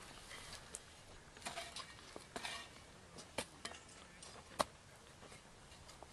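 Faint scraping and clicking of trail-building hand tools working dry, stony desert ground. Scattered scrapes and sharp knocks, the loudest a single knock about four and a half seconds in.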